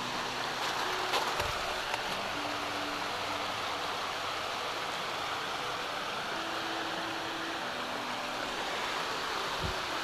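Small mountain waterfall cascading down rock slabs, a steady rush of water at a low autumn flow. A dull thump about a second in and another near the end.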